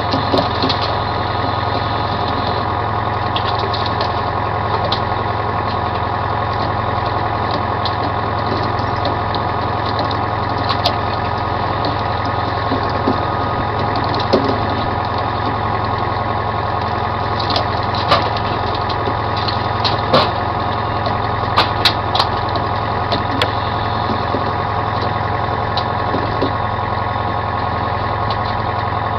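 Commercial salmon troller's engine running steadily at trolling speed, an even drone, with scattered sharp clicks and knocks from the deck gear, most of them around the middle.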